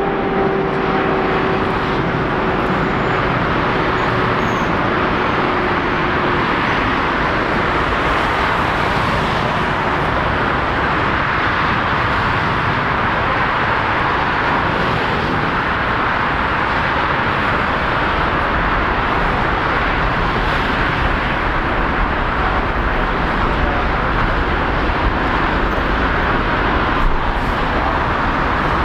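Boeing 777 freighter's twin turbofan engines on landing: a whine with two tones falling in pitch as the aircraft passes, fading within the first few seconds, under a steady, even rush of engine and airport noise that continues through touchdown and rollout.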